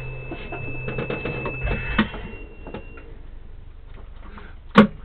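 Power inverter's low-input-voltage alarm: a steady high-pitched whine over a low hum, both stopping about two to three seconds in, the sign that the battery feeding the inverter has run down. Scattered small clicks throughout, and a short loud sharp sound near the end.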